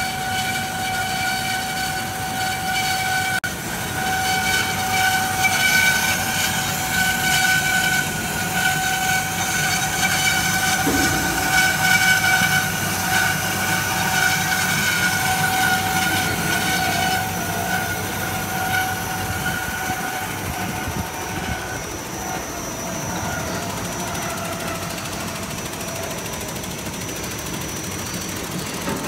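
Automatic horizontal metal band saw cutting steel bar: the blade gives a steady, high, multi-tone whine over the running noise of the machine. The whine eases off about two-thirds of the way through.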